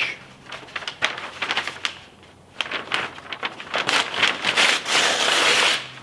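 A large sheet of paper rustling and crinkling as it is handled and folded, with dense irregular crackling that is loudest near the end.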